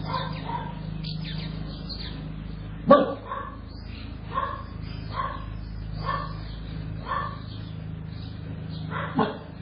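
Dogs barking, short barks about once a second, with two much louder barks about three seconds in and near the end, over a steady low hum.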